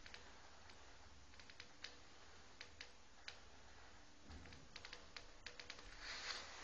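Near silence: faint room tone with a scatter of light, irregular clicks.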